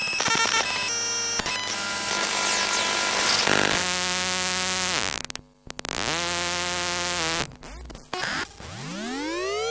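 Electronic circuitry picked up with coil pickups and contact microphones, edited into a quick run of samples: stepped bleeps and buzzing hiss, then a whine that falls in pitch and cuts out about five seconds in, a steady buzzing hum, and near the end a whine rising steadily in pitch.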